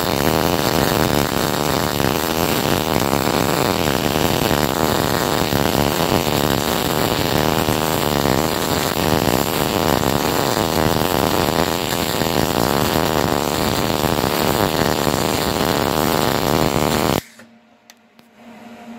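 MIG/MAG welding arc in short-circuit (dip) transfer, 0.8 mm wire under argon-CO2 at about 19.5 V and 110 A, making a steady rapid crackle while the weaved capping pass is run up a vertical T-joint. The arc cuts off suddenly about two seconds before the end.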